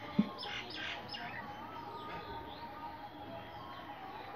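Quiet room tone with a pen writing on paper in short scratchy strokes, a soft knock just after the start, and faint bird chirps in the background.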